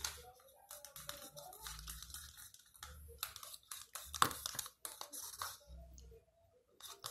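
Irregular sticky crackling, scraping and small clicks of a gel slime mixture being handled in its container, with one sharper click about four seconds in.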